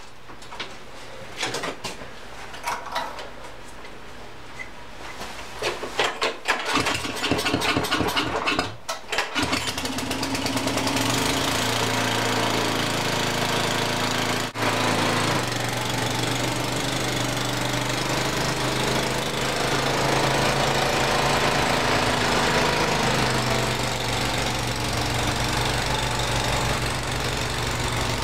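Bolens 824A snowblower engine being started: scattered clicks and knocks, then several loud uneven cranking bursts, after which the engine catches about ten seconds in and runs steadily.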